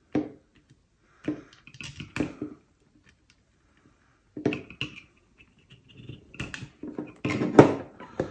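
Scattered small knocks, clicks and scraping from tools and small plastic parts being handled on a workbench, the loudest knock near the end.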